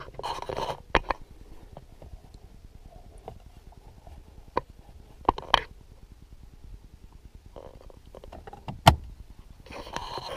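Sharp clicks and knocks of plastic car interior trim: the fold-down storage bin under the dashboard being handled and shut, the loudest knock about nine seconds in. There are short rustles from the camera being handled near the start and again near the end.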